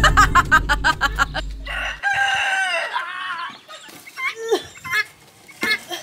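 Chickens in a run: a quick series of clucks, then about two seconds in a rooster crows, one call of about a second that falls at the end, followed by scattered clucking. A low steady rumble sits under the first two seconds and cuts off suddenly.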